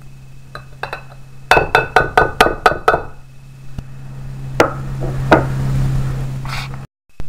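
A spoon knocked quickly against the rim of a glass mixing bowl, about seven sharp taps in a burst, then two more single taps, shaking sour cream off into the bowl.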